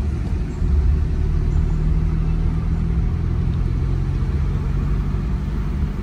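Small car driving, heard from inside the cabin: a steady low rumble of engine and road, with an even engine drone through the middle.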